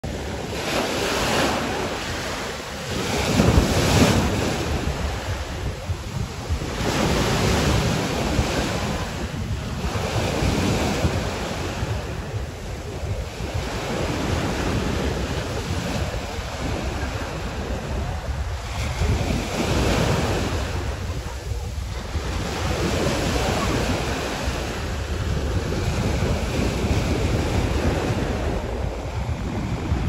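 Small surf breaking and washing up the sand, swelling and ebbing every few seconds, with wind rumbling on the microphone.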